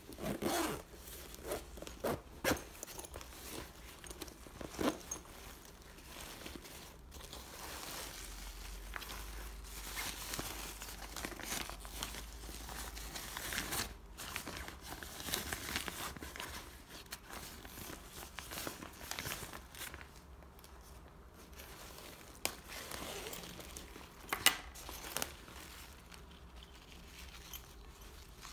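Black plastic packaging bag crinkling and rustling as it is handled, with a few sharp clicks and taps in the first few seconds.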